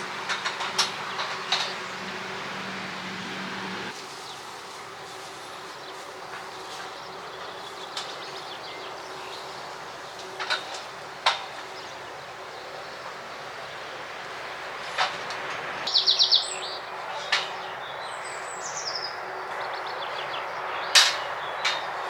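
Occasional sharp metal knocks and clanks of galvanized steel stall panels and roof framing being handled and fitted, a few seconds apart. A bird chirps in a quick run of notes about sixteen seconds in, followed by a falling trill.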